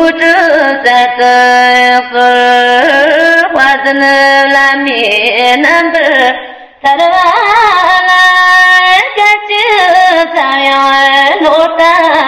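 A female voice singing a Tibetan Buddhist guru yoga prayer to a slow melody, with long held notes that slide between pitches and a short pause for breath about seven seconds in.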